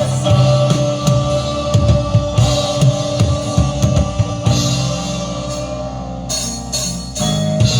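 Loud music with a drum kit, cymbals and bass. The drums ease off about halfway through, leaving held bass notes, and come back in near the end.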